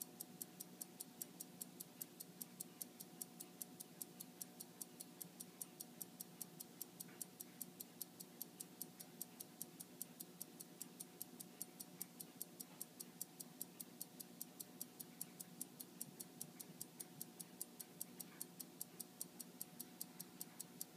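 The mechanical movement of a 1914 Omega skeleton watch ticking faintly and evenly, about five ticks a second, from its balance and escapement.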